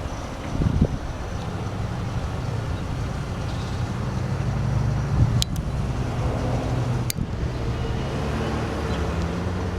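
Steady low rumble of a running motor vehicle engine, with a few sharp clicks.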